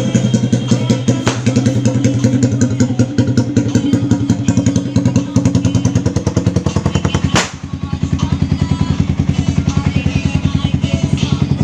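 Motorcycle engine idling through only an elbow (header) pipe with no muffler: a loud, fast, even popping from the open exhaust, briefly dipping about seven seconds in before settling back.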